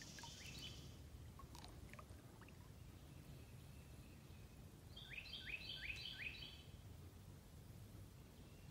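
Quiet outdoor ambience with a faint low rumble. About five seconds in, a bird sings a quick run of four sharply falling notes.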